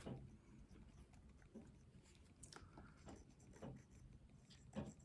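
Near silence with faint, brief rubbing and dabbing scuffs every second or so, as a stain-soaked pipe cleaner is worked over a briar pipe bowl.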